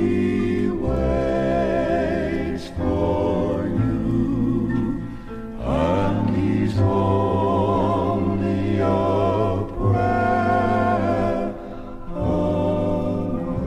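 Male gospel quartet singing in harmony, a run of long held chords with vibrato.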